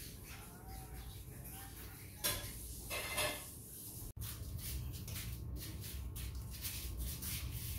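Scattered light clinks and knocks of hard objects, with a louder clatter about two seconds in and another a second later.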